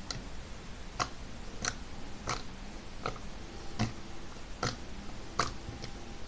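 Two batches of glue-free jiggly slime being mixed and squeezed by hand, making a series of short wet clicks and pops, about one every three-quarters of a second.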